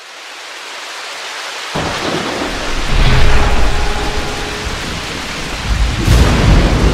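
Thunderstorm sound effect for a title card: rain hissing and swelling, with deep thunder rumbling in about two seconds in and surging again near the end.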